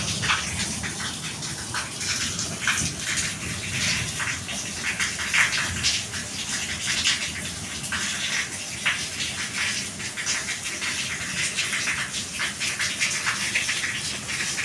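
Heavy rain falling, a steady hiss with irregular sharper splashes of drops landing close by.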